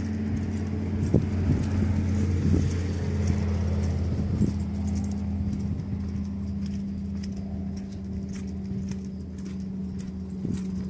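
A horse loping on a soft sand arena: muffled hoofbeats and light metallic jingling, over a steady low mechanical hum.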